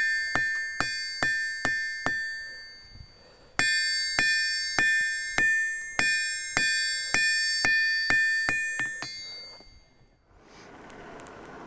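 Hammer blows on hot iron over a steel anvil, each with a bright ringing of the anvil, about two to two and a half strikes a second. There is a short pause about two seconds in, then the rhythm resumes and fades out; a low steady rush follows near the end.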